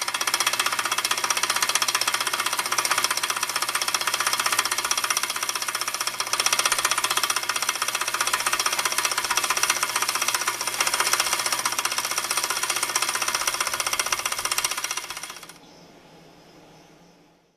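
Craftsman 103.23620 bench drill press running, its belt and pulleys turning with a loud, rapid, steady clattering rattle: the unexplained noise the owner wants to fix. The sound falls away about fifteen seconds in.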